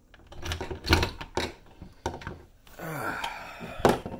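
Knocks and thumps of a camera being handled and repositioned, the loudest about a second in and again near the end, with a short sound falling in pitch about three seconds in.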